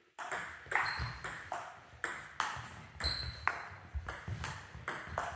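Table tennis rally: the ball clicks off the bats and bounces on the table, two to three sharp knocks a second, some with a short high ring. One bat is faced with Sauer & Tröger Monkey long-pimple rubber (0.6 mm sponge).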